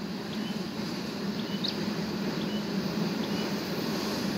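Train coming from a distance: a steady low hum from the locomotive that slowly grows louder. Short high chirps repeat every second or so over it.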